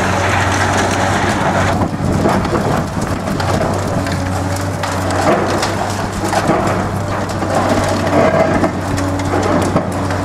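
CAT 385C high-reach excavator's diesel engine running with a steady low hum while its demolition shears crush concrete, a continuous crackling and crunching with debris pattering down.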